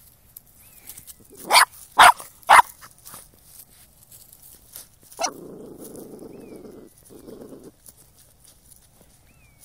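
Jack Russell Terrier puppy barking at a mole's burrow: three loud, quick barks about a second and a half in, then one more sharp bark followed by about two and a half seconds of low rasping noise, broken once.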